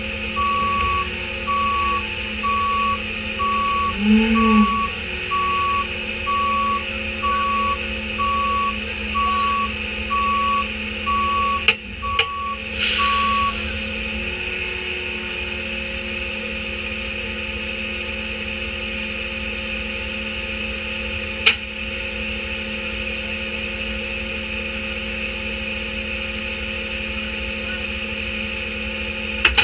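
Autocar Leach rear-loader garbage truck's diesel engine running steadily while its reverse alarm beeps regularly, about one beep a second, for the first half. Near the middle come a couple of sharp knocks and a short hiss; after that the engine runs on alone, with one more knock later.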